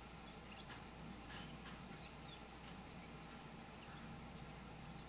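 Faint outdoor ambience: a steady hiss with a few brief, faint high bird chirps and light ticks in the first couple of seconds. No thunder is heard.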